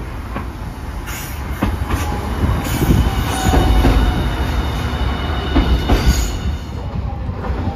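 Hiroden streetcar running past on street track, its wheels knocking over rail joints several times with a thin, high wheel squeal. It is loudest about three to four seconds in, then eases off.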